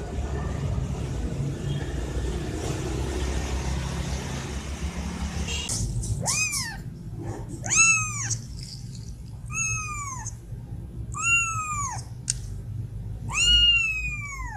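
A young kitten meowing five times, about one and a half to two seconds apart, each meow high-pitched and rising then falling. A steady low rumble and hiss runs underneath and is all that is heard for the first half.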